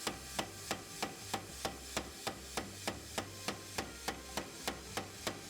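Power hammer striking a hot steel knife bar in a steady rhythm of about three blows a second, over the low hum of the machine.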